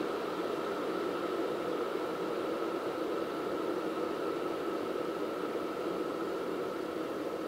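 T-fal Justine+ 1.2 L electric kettle heating water, a steady rushing noise.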